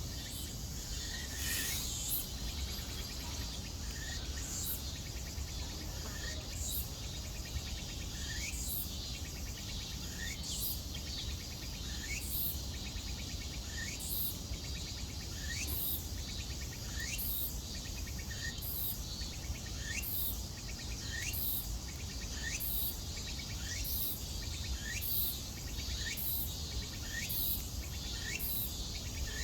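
Insect calling in short, repeated chirps that rise in pitch, speeding up from about one every two seconds to about one a second, over a steady low rumble.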